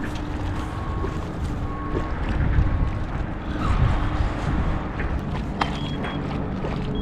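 Wind buffeting the microphone in a fluctuating low rumble, with a few faint clicks about five to six seconds in.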